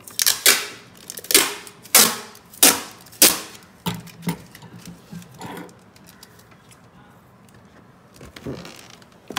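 Brown packaging tape pulled off its roll in short rasping strips, about eight pulls in the first four seconds, then fainter rubbing and crinkling as the tape is pressed onto a rubber balloon.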